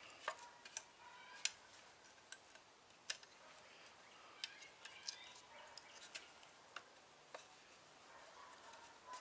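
Irregular sharp clicks and creaks, a dozen or so, the loudest about a second and a half in, from a stick being twisted in a loop of nylon bank line. The twisting winds the cord tight to tension the blade of a wooden frame (bow) saw.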